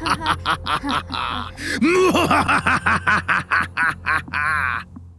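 A cartoon pumpkin villain's long evil laugh: rapid 'ha-ha' pulses swooping up and down in pitch, over a low steady hum. It breaks off near the end.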